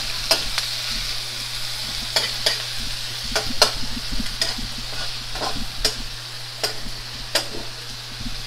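Shrimp sizzling in hot oil in a small metal wok, stirred with a metal spatula that scrapes and clinks against the pan at irregular moments, about once or twice a second.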